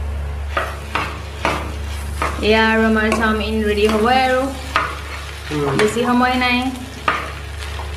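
Chicken chow mein sizzling in a kadai as a metal spatula stirs and scrapes the noodles, with several short clanks of the spatula against the pan. Twice in the middle a longer wavering pitched sound stands out above the stirring.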